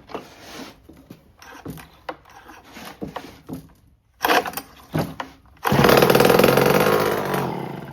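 Homelite C5 two-stroke chainsaw being pull-started on a shot of fuel poured down the carburetor: after some handling clatter and a couple of sharp pulls, it fires and runs loudly for about two seconds, then dies away near the end once the prime is used up.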